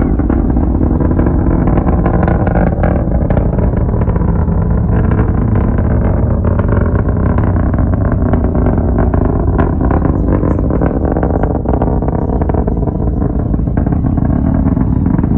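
Distant rocket's engine roar: a steady low rumble with crackle running through it.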